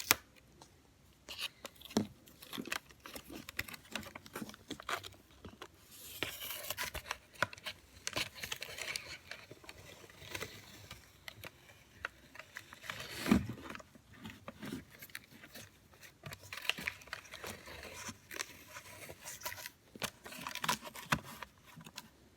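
Adhesive tape being pulled off its roll and torn, mixed with cardboard being handled and scraped, many small clicks and one louder thump about thirteen seconds in.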